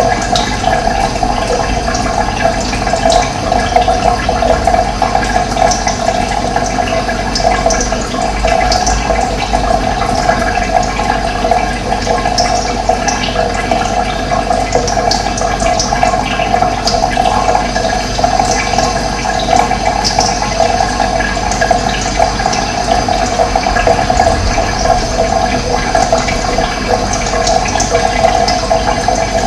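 Running water flowing steadily, with short high bird chirps scattered over it.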